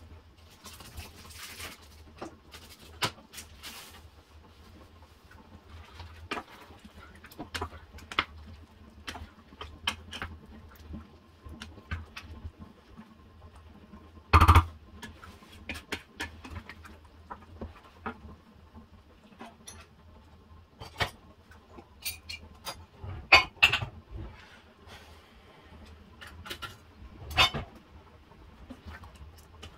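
Wooden spoon stirring a thick vegetable sauce in a stainless steel saucepan, with scattered knocks and scrapes against the pan. The loudest knock comes about halfway through and a few more come near the end, over a faint steady low hum.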